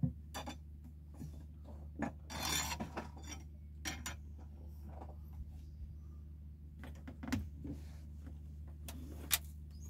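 Scattered knocks, clicks and rubs from handling fishing gear in a small boat, the longest a rasping rub about two and a half seconds in, over a steady low hum.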